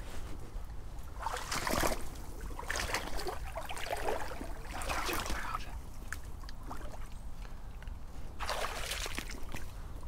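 Wading footsteps through shallow creek water: a series of sloshing splashes, about one a second, with a pause of a few seconds in the middle.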